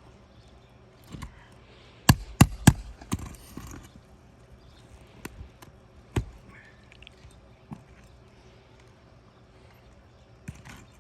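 A roofing removal tool knocking and prying under brittle architectural asphalt shingles: three loud knocks in quick succession about two seconds in, then scattered single knocks and cracks.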